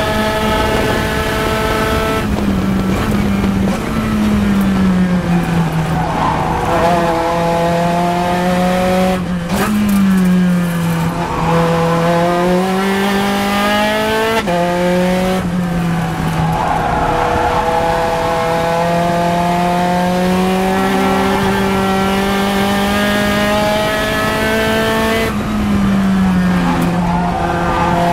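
Onboard sound of a Spec Racer Ford Gen3 race car's engine, recorded in the open cockpit. It runs near full revs, then drops in pitch in steps as the driver brakes and downshifts for corners. It climbs again through several gear changes, with tyres squealing at times through the corners.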